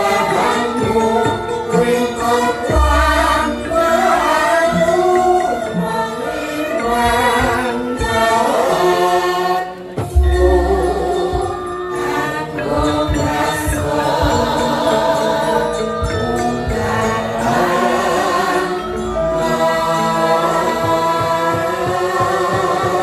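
Javanese gamelan music with singing: several voices sing a slow melody over the ensemble, with a deep low boom about three seconds in and again about ten seconds in.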